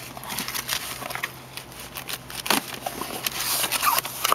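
Cardboard shipping box being handled and opened: scattered scrapes, knocks and crackles of cardboard, with crumpled packing paper rustling near the end.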